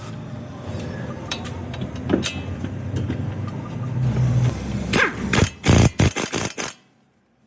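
Car running with a steady low rumble that grows louder, a few light clicks, then a burst of loud sharp knocks about five seconds in before the sound cuts off suddenly.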